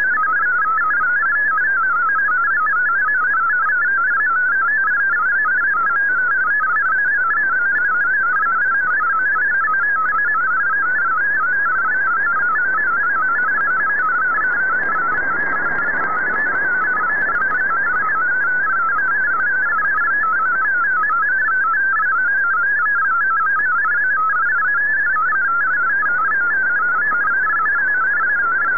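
MFSK32 digital text signal received off a shortwave broadcast: a fast, unbroken warble of hopping high tones over faint static, with a brief swell of hiss about halfway through.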